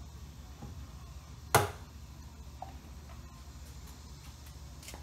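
A single sharp click about one and a half seconds in, from hand work on a hose clamp at a BMW S85 V10's intake plenum, over a steady low hum.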